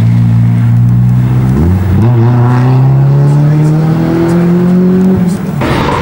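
Renault Clio rally car's engine pulling hard on a steady note. About one and a half seconds in the revs dip and jump back up at a gear change, then climb slowly. Near the end the note drops away and gives way to a louder, rougher car sound with tyre noise.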